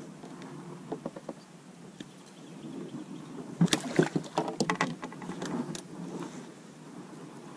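A hooked bowfin thrashing and splashing at the side of a canoe as it is clamped with a lip gripper and lifted, with a burst of sharp splashes and knocks starting about three and a half seconds in and lasting a couple of seconds.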